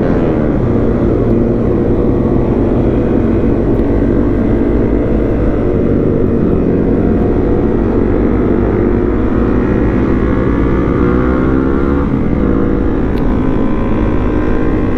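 Honda CRF250 Rally's single-cylinder engine running steadily under way, its pitch rising and falling gently with the throttle, with other motorcycles riding close by.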